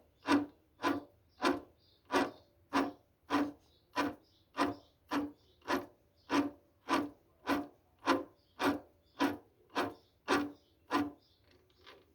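Rhythmic rasping scrapes, a little under two a second, each with a short ringing tone, from a part of a Honda CG 125 Titan's clutch being worked by hand. The owner takes the noise for a worn clutch bearing.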